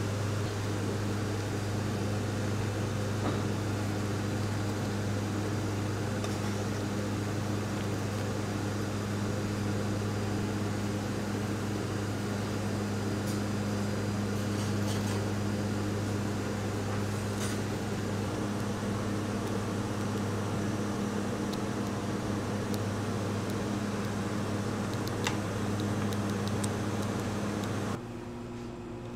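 A steady low machine hum, as of an electric motor or fan running, with a few faint clicks. Near the end it cuts to a quieter hum of a different pitch.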